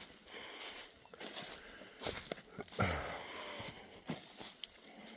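Footsteps and rustling through dense brush, scattered snaps and knocks, over a high steady hiss that cuts off suddenly almost three seconds in.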